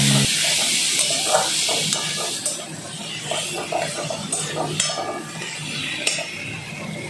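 Potato chunks frying in spice paste in a metal kadai, sizzling, while a metal spatula stirs and scrapes against the pan with scattered sharp clicks. The sizzle is strongest in the first couple of seconds and then eases.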